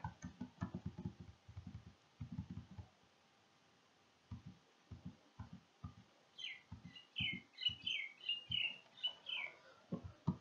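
Computer keyboard typing in short bursts of muffled keystrokes. From about six seconds in to near the end, a small bird chirps a quick run of short, high, falling chirps.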